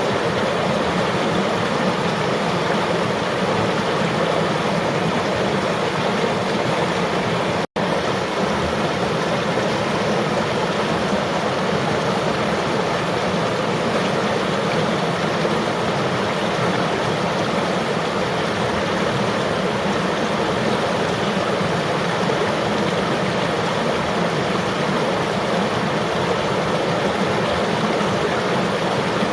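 River water flowing and rushing in a steady, even wash of noise, broken once by a split-second dropout about eight seconds in.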